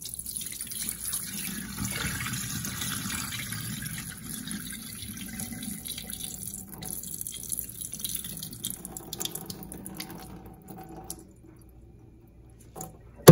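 Cloudy rice-rinse water pouring from a rice cooker's inner pot into a stainless steel sink and down the drain, a steady splashing stream that slowly weakens and stops about eleven seconds in. This is the draining step of washing rice.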